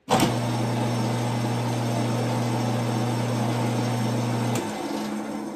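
Late-1960s Delta Rockwell 15-017 drill press switched on with a click and running with a steady motor hum, its motor shaft bearings freshly oiled to cure a squeak. Near the end it is switched off, the hum stops and the machine coasts down, fading away.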